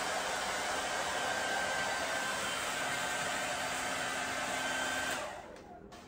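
Handheld hair dryer blowing steadily with a faint whine, then switched off about five seconds in, its fan winding down.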